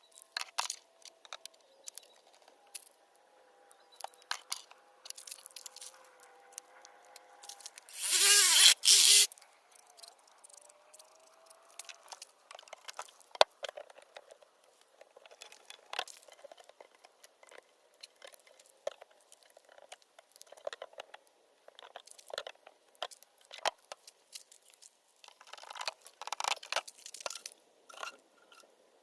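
Pipes being worked into the holes in a cooler lid: scattered clicks, knocks and scrapes, with a loud scraping rasp lasting about a second a third of the way in and another run of scraping near the end.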